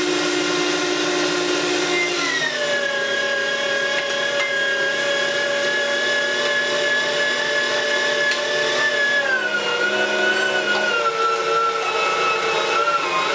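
Panasonic electric meat grinder running with a steady motor whine. Its pitch drops about two seconds in and again about two-thirds of the way through as the motor slows under the load of the beef being fed through it.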